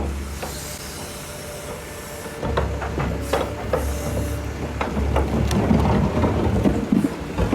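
Excavator's diesel engine rumbling as it loads a dump truck, with scattered clanks and knocks and two short spells of hiss in the first half.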